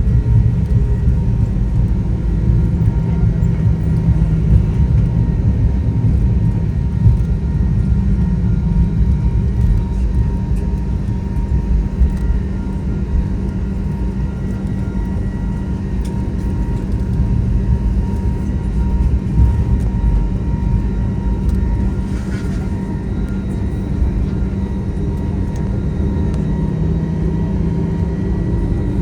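Steady cabin noise of a Boeing 737-900 on the ground after landing, heard from inside the passenger cabin: a deep engine rumble with a thin steady whine above it.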